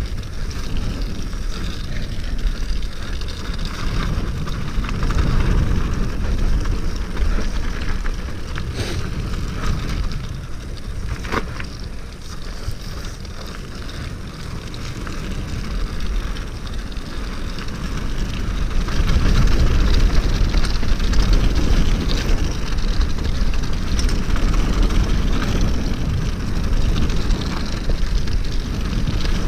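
Wind rushing over the microphone with tyres rolling over frozen, leaf-strewn dirt and the rattle of a 29er steel hardtail mountain bike on a fast descent. A couple of sharp knocks come about 9 and 11 seconds in, and the noise grows louder from about two-thirds of the way through as speed picks up.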